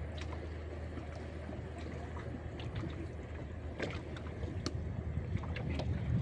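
Steady low drone of a boat engine over an even wash of river water and wind, with a few sharp little clicks scattered through the second half.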